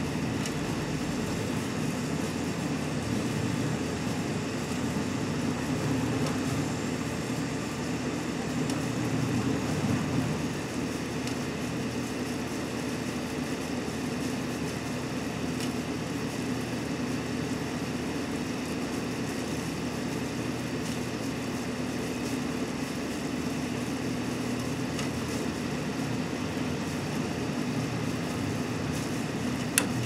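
Sharp Half-Pint microwave oven running with pine cones inside: a steady electrical hum with its fan. A sharp click near the end as the oven shuts off.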